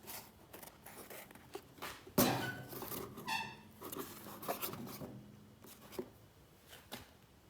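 Handling and unpacking of a small parts kit: scattered clicks and rustling, with one sharp knock about two seconds in and a short squeak soon after.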